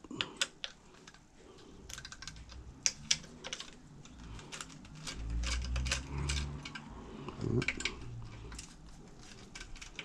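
Irregular light clicks and taps of a 2.5 mm hex screwdriver and small screws as the screws are worked out of the plastic cover on a Xiaomi M365 Pro scooter's front fork. A low rumble of handling comes about halfway through.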